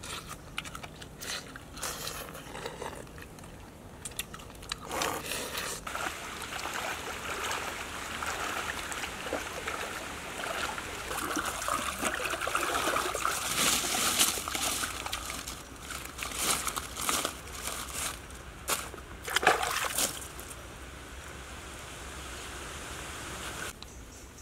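Water sloshing and splashing as people wade through a shallow stream, with repeated short splashes through the middle of the stretch.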